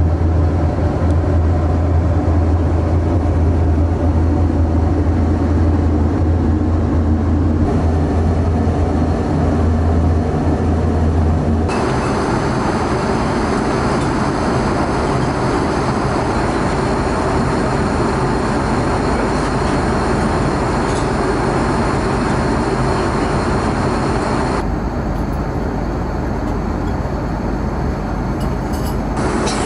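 Steady cabin noise of an Airbus A330-300 in cruise, an even rush of airflow and engine drone. For about the first twelve seconds, in the lavatory, a strong low hum stands out. The sound then changes abruptly to a broader, even cabin rush, with another abrupt change in texture near the end.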